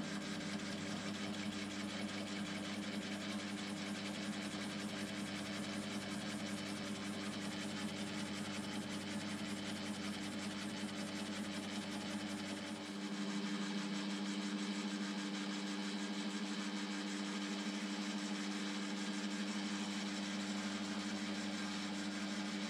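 Metal lathe running, turning a cast-iron blank in a four-jaw chuck while the tool faces the iron: a steady hum and whine over a hiss. About halfway through, the low rumble drops away and the hum gets a little louder.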